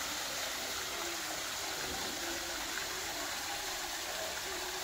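Waterfall rushing steadily, a constant even wash of falling water.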